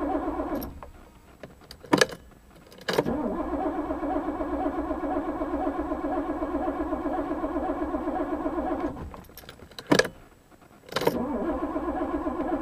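1982 Porsche 928 S V8 cranking on its starter motor without firing, in long bursts with a fast even pulse. It stops twice, each time for about two seconds with sharp clicks between, and then cranks again: a no-start.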